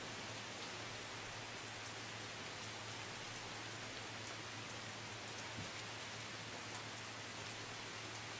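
Steady rain falling, a constant hiss with single drops ticking sharply here and there, over a faint steady low hum.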